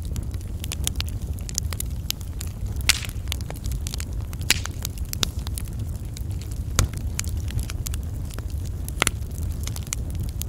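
Wood fire burning, crackling with frequent sharp pops, a few of them louder, over a steady low rumble.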